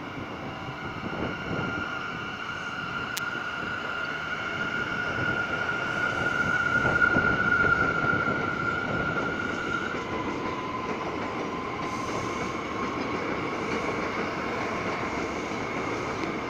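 R179 subway train running past on an elevated track, its cars rumbling over the rails with a high steady whine that drops to a lower pitch about ten seconds in. The sound swells to its loudest about halfway through.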